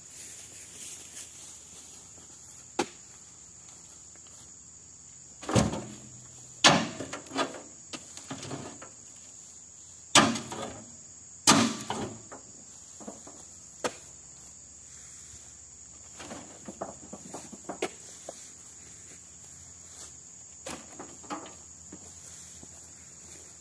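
Heavy oil palm fruit bunches thudding into a steel tractor trailer as they are heaved in on a spiked pole: four loud thuds between about five and twelve seconds in, then lighter knocks. A steady high insect drone runs underneath.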